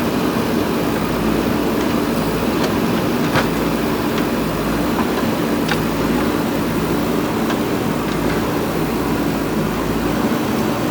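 JCB backhoe loader's diesel engine running steadily, with a few short sharp knocks; the loudest comes about three and a half seconds in.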